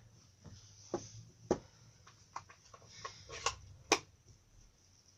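Scattered light taps and clicks, the sharpest about a second and a half in and near four seconds in, from an ink pad and rubber stamp being handled as the stamp is inked.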